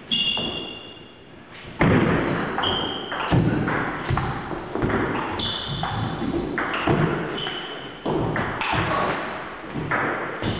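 A long table tennis rally: the ball clicking off rubber-covered bats and the table about every half second, echoing in a large hall. Brief high squeaks sound among the strokes.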